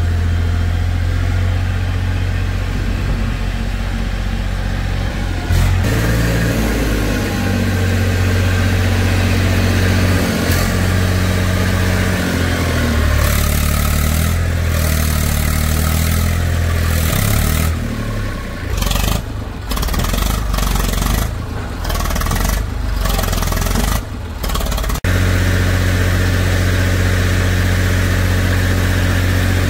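Diesel engine of a JCB 3DX backhoe loader running steadily, then revving up about six seconds in, its pitch rising and falling repeatedly as it works under load, with several brief dips in level. Near the end it drops suddenly back to a steady drone.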